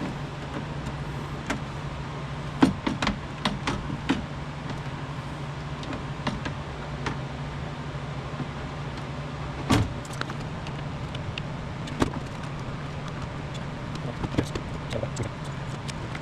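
Scattered clicks and knocks of tools and metal parts being handled while a power window regulator assembly is worked on, over a steady low hum. There is a quick cluster of clicks a few seconds in and a sharper knock about midway.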